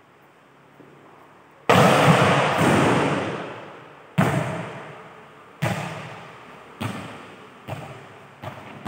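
A volleyball struck hard, then bouncing on the court floor about six times, the bounces coming quicker and fainter like a ball settling. Each impact rings on in the long echo of a large metal-roofed sports hall.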